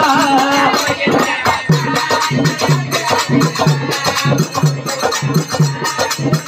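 Instrumental interlude of a bhajan song: a harmonium playing the tune over a steady hand-percussion beat of about two strokes a second.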